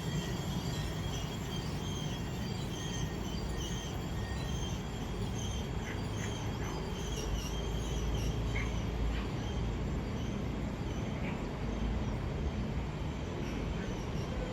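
Container wagons of an intermodal freight train rolling past, with a steady rumble of wheels on rail, faint high wheel squeal and occasional clicks.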